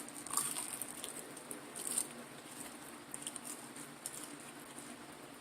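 Faint light clicks and taps, a little louder about half a second and two seconds in, over a low steady hum.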